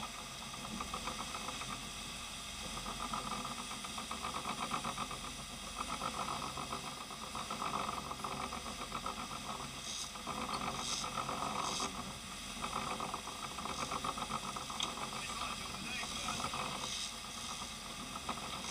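Sportfishing boat's engine running steadily underway while trolling, with a fast, even pulse and a hiss of churning wake, heard muffled.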